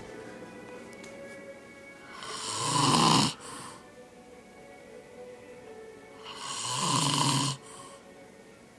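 A man snoring, two long snores about four seconds apart, each building up over about a second and then cutting off sharply.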